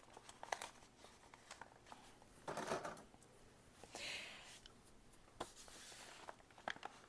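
Faint rustling and light tapping of loose paper sheets being gathered and handled, with two brief sliding rustles about two and a half and four seconds in.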